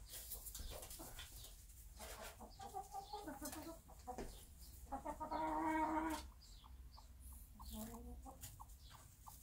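Bantam hen clucking while sitting in a hay-lined nest box, with a louder drawn-out call of about a second around five seconds in. Short ticks and rustles in the hay follow near the end.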